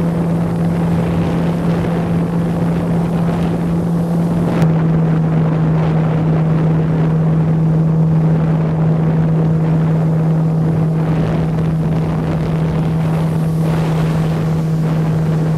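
Outboard motor on a small aluminium fishing boat running steadily at speed, a constant drone that drops slightly in pitch about five seconds in, with water rushing past the hull.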